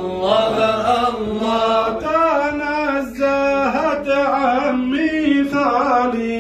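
A man singing Sufi praise (madih) unaccompanied, in long held notes that bend up and down in pitch.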